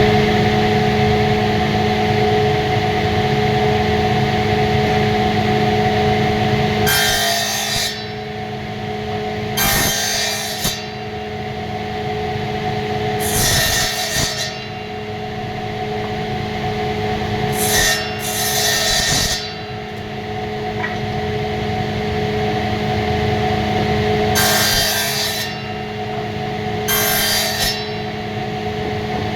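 Electric woodworking machine running with a steady motor hum, cutting into wood in short passes several seconds apart, each with a harsh rasping burst.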